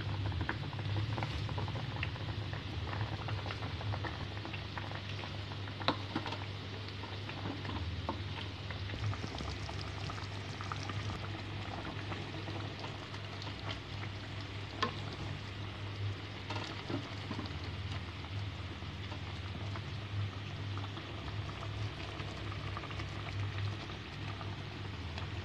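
A pot of melinjo-leaf and tempeh broth boiling: steady bubbling and crackling over a low steady hum, with two sharper clicks about six and fifteen seconds in.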